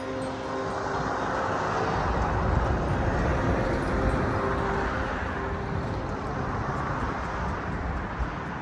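A passing vehicle's rumbling noise, swelling over the first few seconds and easing off toward the end.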